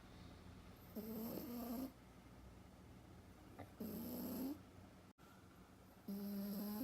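French bulldog puppy snoring in its sleep: three snores about three seconds apart, each a little under a second long.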